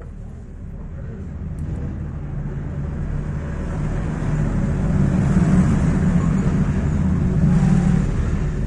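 A motor vehicle's engine rumble, growing steadily louder over several seconds and easing off slightly near the end, like traffic passing close by.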